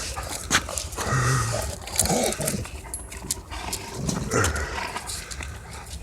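Dogs play-fighting: three short bursts of growly vocal noise, with scuffling clicks between them.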